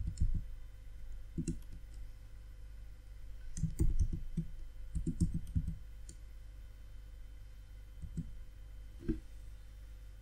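Computer keyboard keys clicking as code is typed, in short irregular bursts with a denser run of keystrokes in the middle, over a faint steady low hum.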